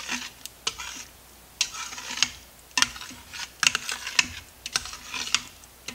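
Metal spoon stirring thick gravy in a stainless steel pressure-cooker inner pot: irregular clinks and scrapes of the spoon against the pot, several a second.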